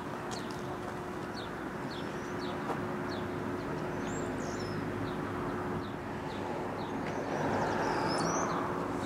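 Small birds chirping again and again, with a couple of longer warbled calls, over steady outdoor background noise and a faint low hum. The background noise swells for about a second late on.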